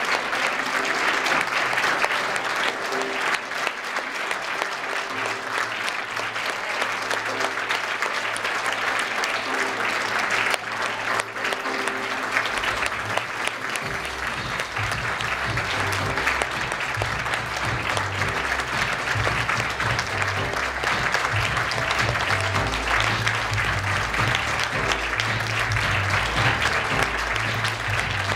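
Sustained applause from an audience and performers clapping, steady throughout, over background music whose bass line comes in strongly about halfway through.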